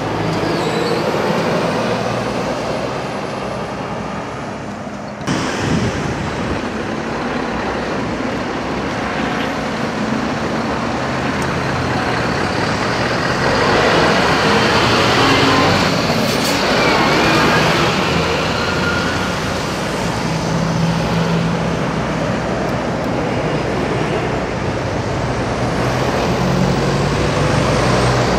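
Passing road traffic: heavy diesel lorries and vans running by, with engine and tyre noise. It is loudest about halfway through, as a Scania R620 V8 tractor unit pulling a refrigerated trailer goes past.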